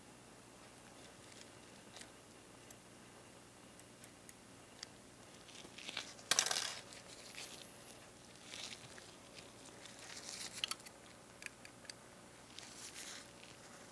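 Gloved hands handling small plastic scale-model car parts: faint scattered clicks, taps and rustles, with a louder rustling scrape about six seconds in.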